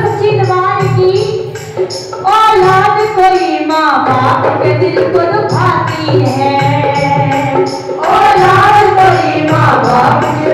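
A woman singing a Hindu devotional bhajan to the Mother Goddess into a microphone, over a steady quick beat of percussion and hand claps.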